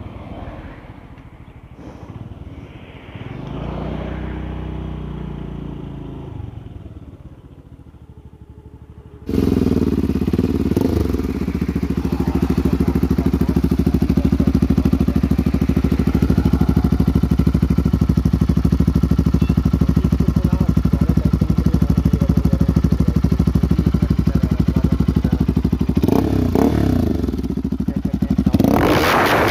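Road noise while riding a scooter, with a car going past. About nine seconds in it cuts abruptly to a Bajaj Pulsar RS200's single-cylinder engine idling close up through an aftermarket slip-on exhaust, a loud, steady, fast pulsing. The revs rise briefly near the end.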